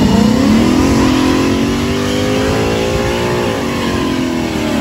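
Ford Mustang GT's 5.0 Coyote V8 revving hard while spinning the rear tyres in a burnout. The engine note climbs through the first few seconds, holds, then falls away near the end.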